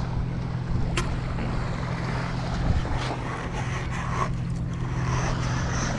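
Steady low drone of a motorboat engine out on the water, over a rushing haze, with one sharp click about a second in.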